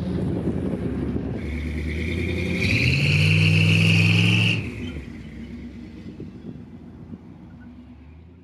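Small-block Chevy V8 in an S10 Blazer revving under load, rising in pitch and getting louder until about four and a half seconds in, then dropping away and fading out.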